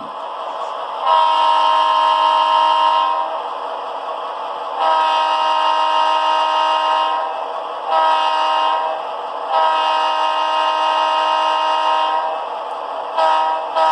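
Recorded Leslie RS-3L three-chime air horn played by a model locomotive's Soundtraxx Tsunami sound decoder. It blows a chord in long, long, short, long blasts, the grade-crossing pattern, and starts another short blast near the end, over a steady background hiss.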